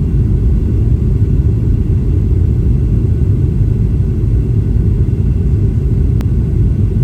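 Steady, loud low rumble of an airliner's cabin noise as the plane comes in to land, with a faint click about six seconds in.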